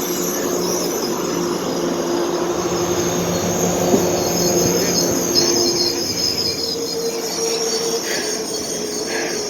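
Passenger train behind an HSP46 diesel locomotive braking to a stop at a red signal, its wheels and brakes squealing high over a steady low drone.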